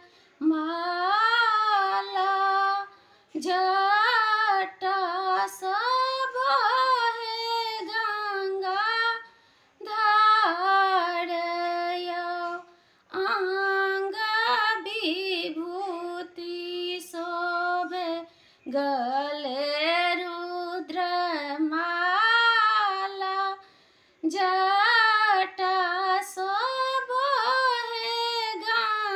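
A woman singing a Maithili Maheshwani, a devotional wedding song to Shiva, solo and unaccompanied. She sings in sustained, ornamented phrases of a few seconds each, with short breaths between them.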